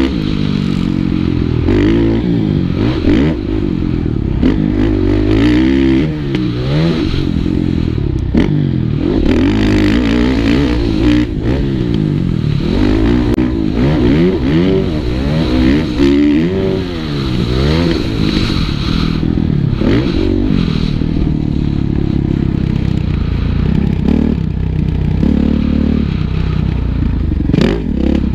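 Motocross bike engine ridden hard on a dirt track, its pitch rising and falling again and again with throttle and gear changes, over a steady low wind rumble on the helmet-mounted microphone.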